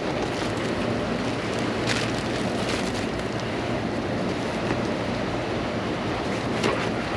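Steady hiss of heavy tropical-storm rain and wind, with a couple of faint knocks about two seconds in and near the end.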